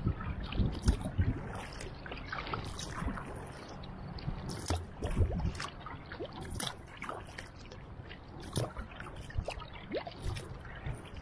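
Wooden Greenland paddle blades dipping into calm sea water with each stroke, giving irregular small splashes and drips trickling off the blades.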